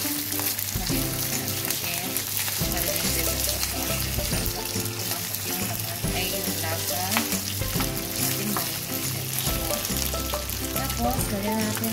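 Pork slices sizzling in hot fat in a frying pan with garlic, onion and chili, while a plastic spatula stirs and turns them, scraping the pan. Background music plays underneath.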